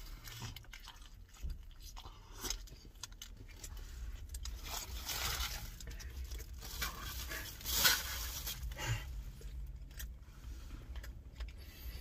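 A man chewing and biting into a chicken cheesesteak: close mouth noises and crunches, with the sharpest crunch about eight seconds in.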